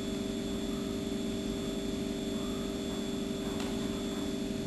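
Steady electrical hum with a faint higher whine, and one faint click about three and a half seconds in.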